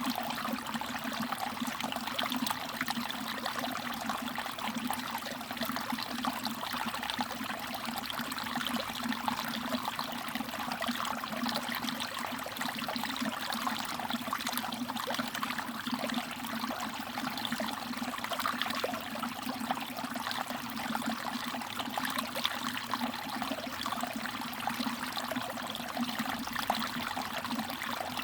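Mountain stream water trickling steadily, with many small splashes and drips running through it.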